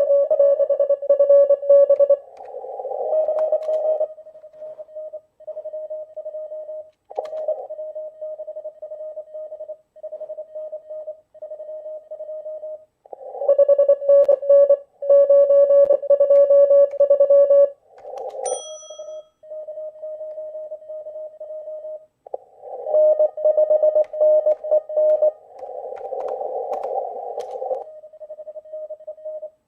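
Morse code (CW) from a ham radio transceiver played through laptop speakers: fast keyed dits and dahs at one steady pitch, with three loud stretches of keying alternating with weaker signals, as in a contest exchange. A short high beep about eighteen seconds in.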